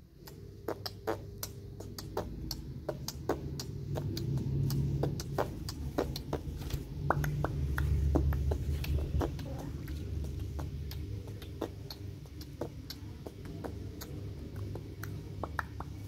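Alexandrine parakeet flapping its wings while balancing on a moving arm: low whooshing wingbeats and rustle, loudest around the middle, with many sharp irregular clicks throughout.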